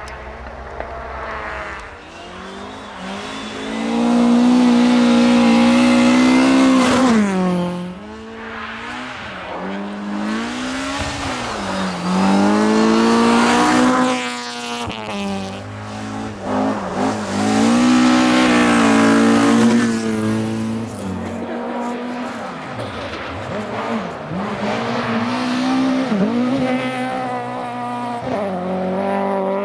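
Rally cars driven hard on a snow-covered stage. The engines rev high and the pitch rises and drops repeatedly as the drivers shift and lift. The loudest passes come about four, twelve and seventeen seconds in.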